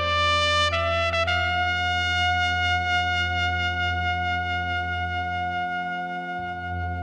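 End-credits music: a melody climbs through a few short notes, then holds one long note over a steady low drone.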